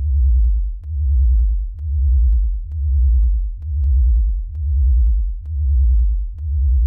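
Deep synthesized bass tone pulsing steadily, swelling and fading a little more than once a second, with a sharp click at the start of each pulse.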